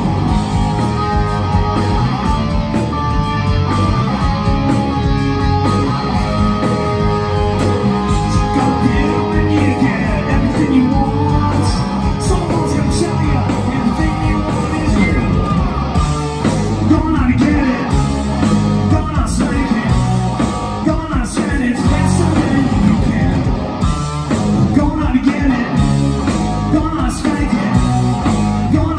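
A loud live rock band playing: electric guitar, bass guitar and drums, with singing.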